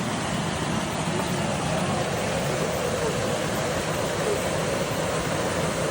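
Waterfall: the steady, even noise of falling water.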